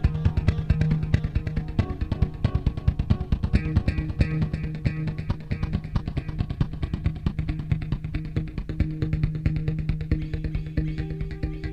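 Background music led by guitar and bass guitar, with a steady beat.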